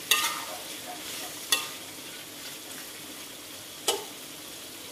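Prawns in chili paste sizzling in a steel wok while a metal slotted turner stirs them, with three short scrapes of the turner against the wok: at the start, about a second and a half in, and near four seconds in.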